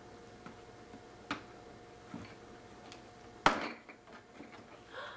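Faint scattered taps and clicks of hands handling a cardboard toy box, then one sharp loud click about three and a half seconds in, where a steady faint hum in the background stops.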